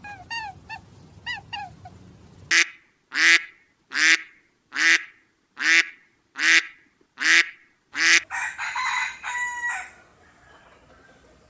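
A large bird gives a series of eight loud honking calls, a little under a second apart. Before them come short chirping calls, and after them a rougher, noisier bird sound that stops about ten seconds in.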